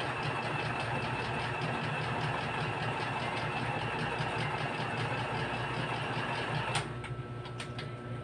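Small electric sewing machine running in one continuous stitching run, a fast even clatter that stops about seven seconds in, followed by a few light clicks. A low steady hum runs underneath.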